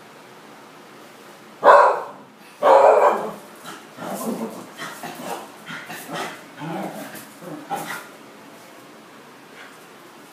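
Parson Russell Terrier barking: two loud barks about a second apart, then a run of shorter, quieter barks for about four seconds.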